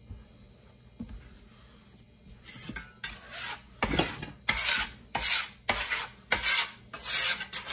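Stainless-steel bench scraper scraping dough crumbs off a marble worktop. After a few light knocks it makes a run of short scraping strokes, about two a second, starting about three seconds in.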